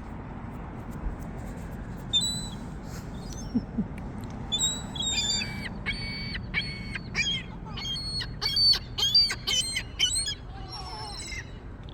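A group of gulls calling: a rapid series of high, squealing calls, some falling in pitch, overlapping from about two seconds in until near the end.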